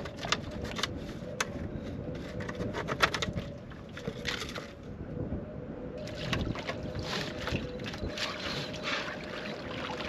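Corrugated black plastic drain tile knocking and scraping as it is worked down into a water-filled hole, then muddy water sloshing and splashing around it from about four seconds in. A steady engine hum runs underneath.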